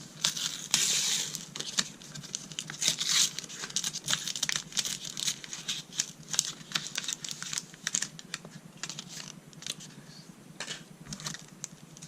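Foil wrapper of a Pokémon card booster pack crinkling and crackling as it is handled and pulled at by hand to tear it open, with the loudest crinkles about a second in and around three seconds in.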